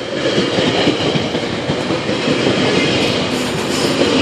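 GO Transit bilevel passenger coaches passing close by at speed: a steady loud rushing rumble with rapid clacking from the steel wheels on the rails, growing a little louder near the end.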